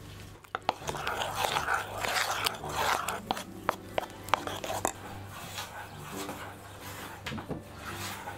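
A spoon beating eggs and sugar in a ceramic bowl: scraping stirs with repeated sharp clinks of the spoon against the bowl, busiest in the first five seconds and quieter after.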